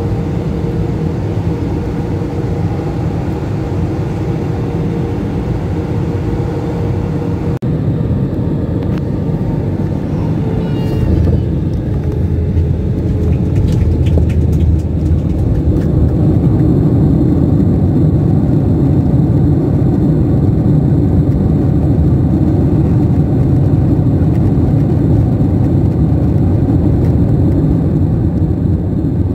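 Jet airliner cabin noise by a window over the wing: a steady rumble of engines and airflow on descent, then, after a cut, landing on the runway with the rumble rising sharply about 11 seconds in and staying loud as the plane rolls out.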